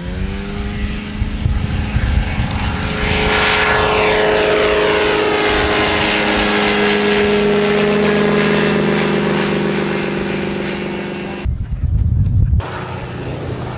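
Snedden M7 ultralight's engine and propeller running at high power in flight: a steady buzzing drone that swells and sweeps in pitch as the aircraft passes close overhead. About eleven seconds in, the drone cuts off abruptly, giving way to a second of low rumble and thumps.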